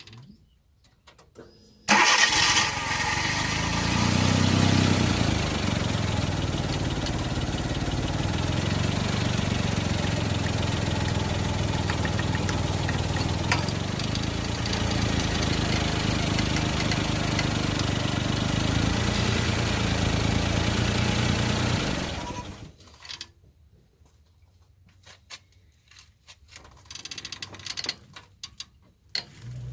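Suzuki Jimny engine started about two seconds in, running steadily with a brief rise early on, then switched off near the end. The owner is trying to pin down a strange abnormal noise from it that he cannot identify.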